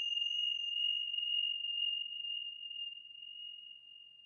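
A single high, bell-like tone from a struck metal chime, ringing on and slowly fading away; a fainter higher overtone dies out within the first couple of seconds.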